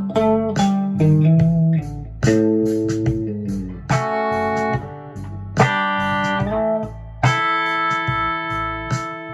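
Electric guitar played clean-boosted through the Mu-Tron Boostron II pedal into a Fender tube amp: single notes and chords that ring out with long sustain. From about four seconds in it is a Telecaster with a B-Bender, through the Red Ranger boost on its treble setting plus the Orange Squeezer compressor into a 1964 Fender Vibroverb, ending on a chord held for about two seconds.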